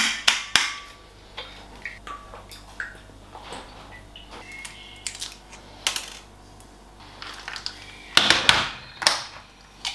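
Dishes and glassware being handled: a string of separate clinks, knocks and clatters, some with a brief ringing tone. The clatter is loudest and busiest about eight to nine seconds in.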